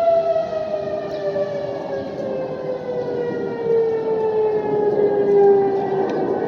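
Outdoor civil-defense warning siren winding down, its tone falling steadily in pitch as the rotor slows, with a second, lower siren tone holding underneath.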